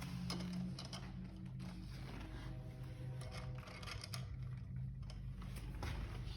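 Small metal parts being handled, with scattered faint clicks and taps as bolts are fitted by hand into a scooter's front wheel assembly, over a steady low hum.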